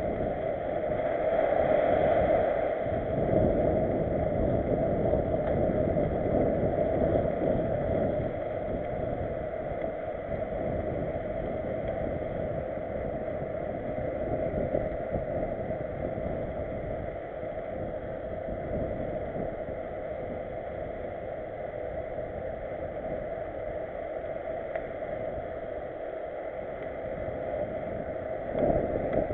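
Steady rushing of wind on the microphone mixed with tyre and rolling noise from a mountain bike riding over cobbles and paved paths, a little louder in the first few seconds.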